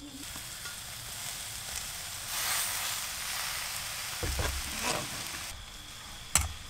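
Frog meat and fresh leafy greens sizzling in a hot wok on a gas burner. The hiss swells about two seconds in and dies back after about five seconds, while a metal spatula scrapes and knocks against the pan, with a sharp clink near the end.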